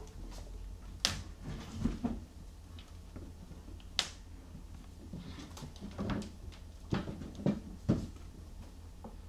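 Maine Coon kittens moving about and playing, making scattered taps, knocks and scuffs, with a cluster of soft thumps in the second half, over a low steady hum.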